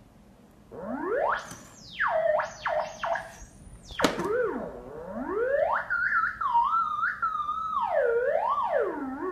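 Theremin tone gliding up and down in pitch as a cat's paws move near and touch its pitch antenna. It starts with wide swoops, then wavers up and down, with a sharp click about four seconds in.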